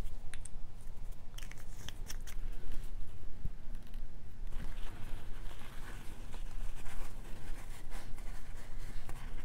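Handling noise from beading supplies being worked by hand: a quick run of small sharp clicks in the first couple of seconds, then soft rustling through the second half.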